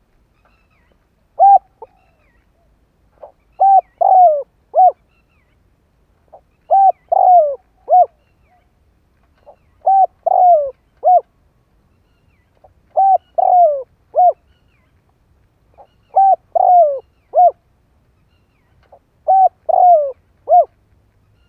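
Spotted dove cooing, repeating its three-note phrase (short coo, longer drooping coo, short coo) about every three seconds.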